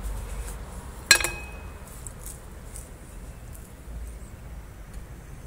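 A single sharp clink about a second in, like a hard piece of tableware being set down, with a short ring. A few faint taps and handling sounds follow over a low background rumble.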